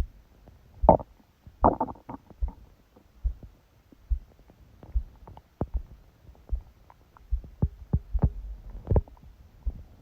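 Stomach growling and a steady heartbeat of a sleeping person, picked up by a phone pressed against the belly. The heartbeat beats a little faster than once a second, and gurgles of the stomach come in about a second in and again near the end.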